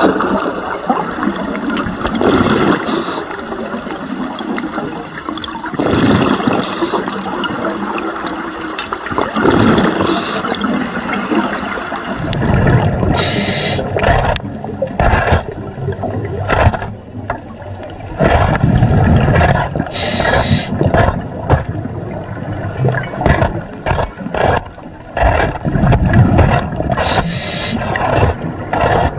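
Underwater scuba breathing: regulator exhaust bubbles gurgling, with a burst about every three and a half seconds. From about halfway in, a run of short scraping and knocking sounds as a hand scraper works marine growth off a submerged structure.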